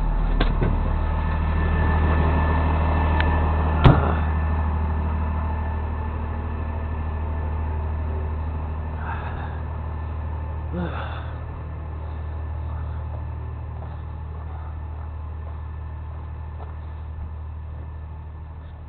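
Truck engine idling steadily with a low hum that slowly fades, and a single sharp metal clank about four seconds in.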